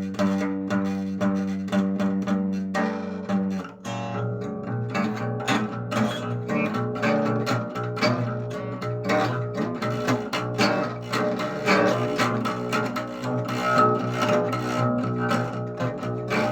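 Instrumental music with plucked-string notes and no voice. Held low notes give way about four seconds in to a busier run of quick notes.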